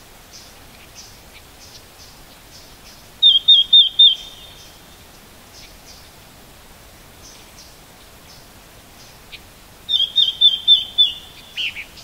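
Red-billed leiothrix calling: soft short call notes scattered throughout, with two loud phrases of five or six quick repeated notes, about three seconds in and again about ten seconds in, the second ending on a lower falling note.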